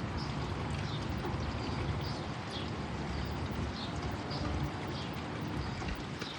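Small birds chirping in short high notes, about one or two a second, over a steady hiss of rain and a low rumble.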